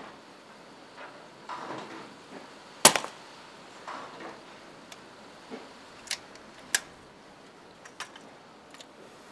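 A single sharp shot from a moderated Daystate Red Wolf pre-charged pneumatic air rifle about three seconds in, as a rat at a hole in the silage is shot. A few fainter sharp clicks follow later.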